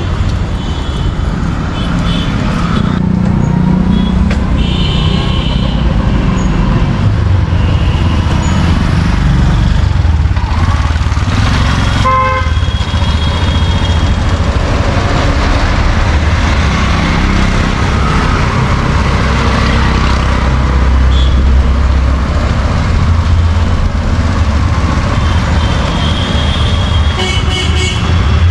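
Busy street traffic: vehicle engines running close by, with horns honking repeatedly in the first few seconds and again near the end.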